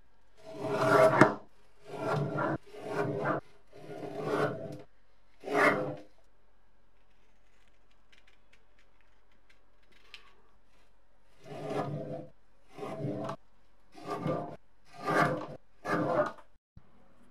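Lever-arm guillotine paper cutter shearing through paper label stock, five rasping blade strokes about a second apart. A quiet pause holds a few faint scissor snips, then five more rasping strokes follow.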